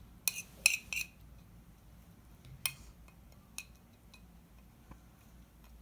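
Metal teaspoon clinking and scraping against a porcelain plate while mixing crushed kibble and water into a paste. There are three quick clinks in the first second, then a few scattered lighter taps.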